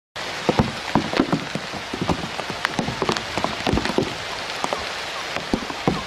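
Rain pattering on leaves and reeds: a steady hiss with many irregular drop taps.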